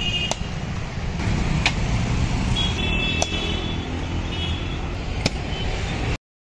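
Street traffic rumble with a few sharp clicks and some brief high-pitched tones in the middle. The sound cuts off abruptly about six seconds in.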